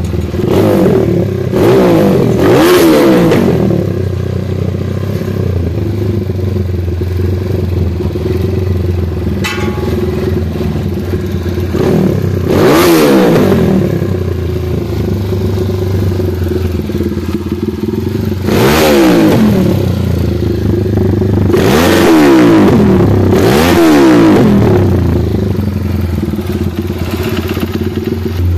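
Ethanol-fuelled motorcycle engine idling, blipped about five times with quick revs that rise and fall back to idle. The builder says it still has a slight tappet knock and needs its carburetor tuned.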